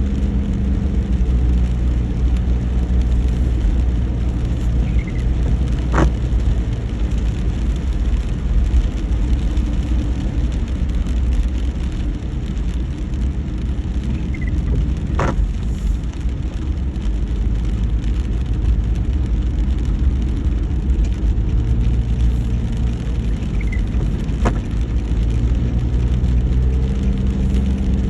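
A car driving in the rain: steady engine and road rumble with rain noise, and a short sharp click three times, about every nine seconds.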